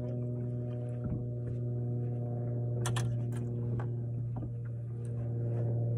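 Boat motor humming steadily at a low pitch, with a few sharp clicks and knocks about halfway through.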